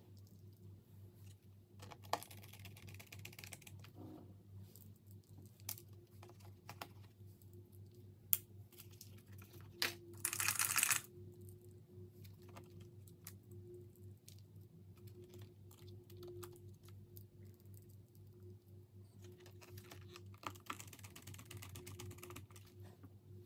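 Quiet clicks and taps as a 2.5-inch SSD, small screws and a screwdriver are handled in an open laptop's drive bay, over a low steady hum. About ten seconds in there is a burst of scratchy noise lasting about a second.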